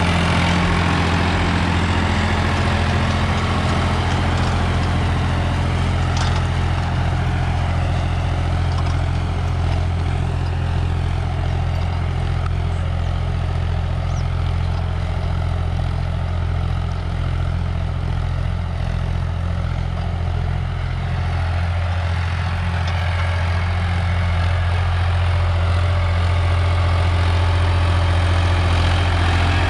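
Preet 955 tractor's diesel engine running steadily under load as it pulls a disc harrow through tilled soil, a little quieter in the middle and louder again near the end.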